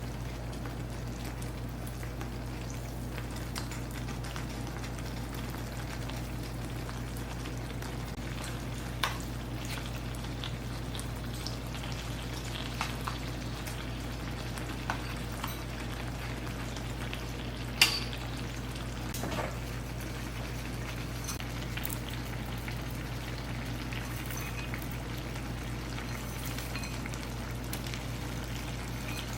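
Food cooking on the stove, a steady sizzle and simmer over a low hum, with a few brief clicks of utensils; the sharpest click comes a little past halfway.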